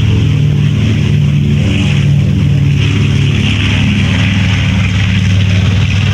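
North American B-25 Mitchell's two Wright R-2600 radial engines running, a loud steady drone as the bomber rolls past along the runway.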